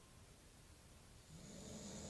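A man snoring in his sleep: a quiet pause between breaths, then the next low, hissing snore begins about a second and a half in.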